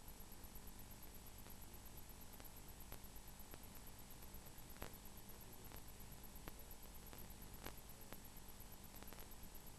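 Near silence: a faint steady electrical hum and hiss, with a few faint clicks scattered through it.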